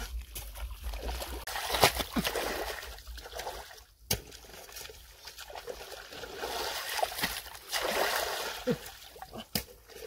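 Muddy shallow water sloshing and splashing as it is waded through and dug into, with a few sharp knocks.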